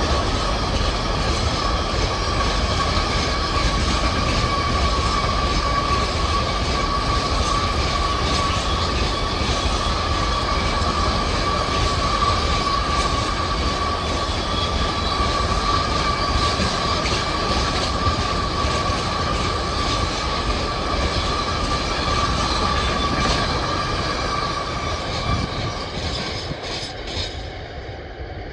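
A train passing at close range, its wheels rumbling over the rails with a steady high-pitched ring, fading away near the end.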